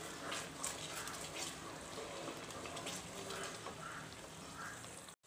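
Onion and cashew paste frying in oil in a pot: a faint, steady sizzle with small crackles and spatters as the paste is being fried down.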